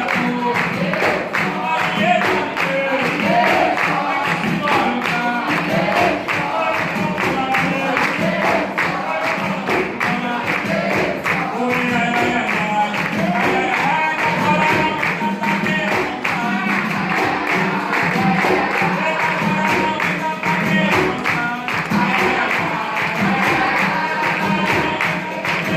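Capoeira roda music: a group singing together over steady percussion and handclaps.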